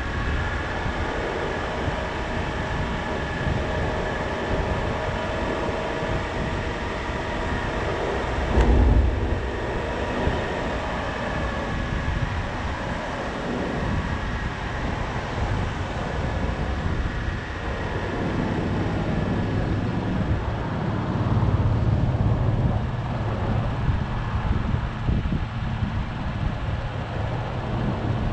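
Car running at low speed, with continuous engine and road rumble. A brief loud low thump comes about nine seconds in, and a steadier low engine hum rises in the last third.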